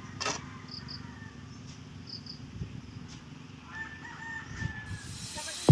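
A rooster crowing once, faint and held for about a second, a little after the middle, with a few short high chirps earlier and a low steady background hum.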